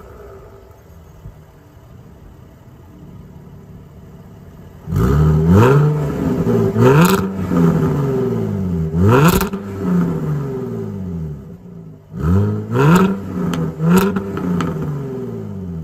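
A 2016 Jaguar F-Type S's supercharged V6 idles with its exhaust valves open. About five seconds in it is revved in about five quick throttle blips, each rising sharply and falling back, with a few sharp cracks from the exhaust at the peaks.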